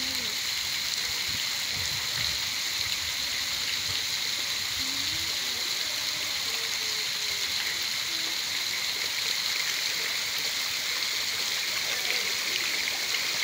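Steady rushing and splashing of water at a koi pond crowded with feeding fish, even throughout.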